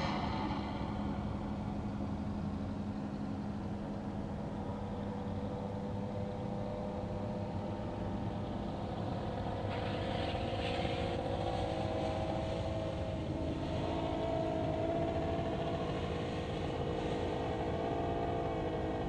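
Paramotor engine running steadily, its pitch drifting slightly upward about halfway through.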